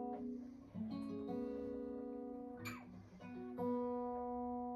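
Acoustic guitar strumming slow, ringing chords: a new chord is struck about a second in and another near the end, with a short scratchy noise just before the last one.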